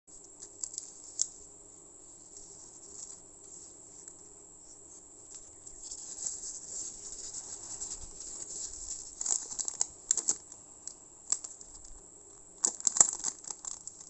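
Crinkled paper wrapper being handled: tape peeled off, the wrapper unfolded, then a plastic sleeve and a tissue-paper envelope rustling, with sharp crinkles in bursts around ten seconds in and again near the end. A faint steady hum sits underneath.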